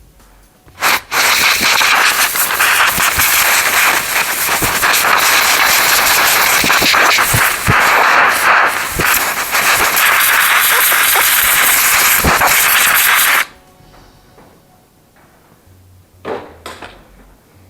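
Compressed air blasting debris out of a cordless chainsaw during cleaning: a loud hiss that starts with a short burst about a second in, runs about twelve seconds with scattered ticks and cuts off suddenly, then one short blast near the end.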